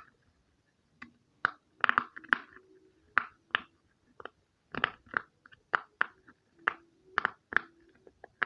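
Pop-it fidget toy being pressed, its bubbles popping in a quick, irregular string of sharp pops, about two or three a second.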